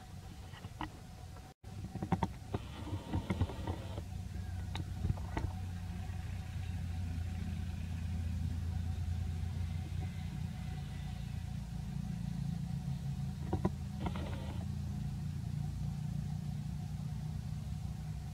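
A motor vehicle engine runs steadily in a low rumble, with scattered clicks and two short rustles.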